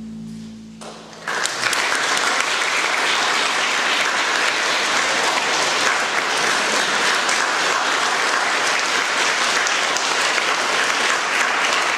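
The last held chord of the song dies away, and about a second in an audience breaks into steady applause.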